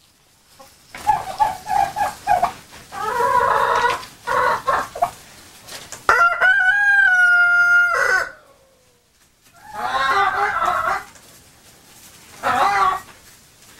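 Chickens clucking, with a rooster crowing once, a single steady call of about two seconds near the middle, followed by more clucking.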